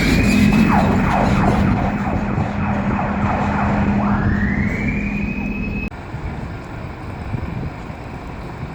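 Fire engine siren winding up and down on a wail: the tone holds high, fades, then rises again and cuts off suddenly about six seconds in, over a low steady hum that stops with it. After the cut only fainter background noise remains.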